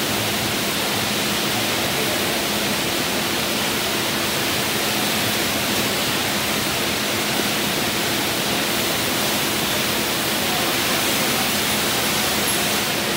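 Semi-automatic pallet stretch wrapper running as it turns and wraps a pallet: a steady, even hiss with a faint low hum underneath.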